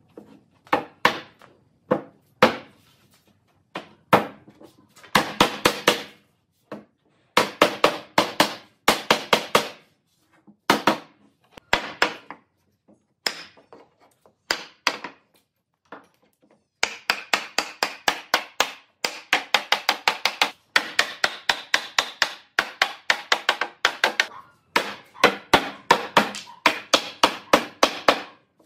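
Hammer striking a solid-wood door frame, driving the rails and stiles together around the raised panel to seat the joints. Quick runs of ringing blows, about four or five a second, broken by short pauses.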